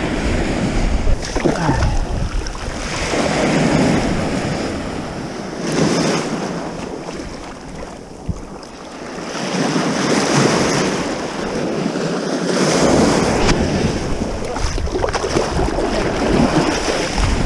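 Ocean surf washing in and out in swells every few seconds, with wind buffeting the microphone at times.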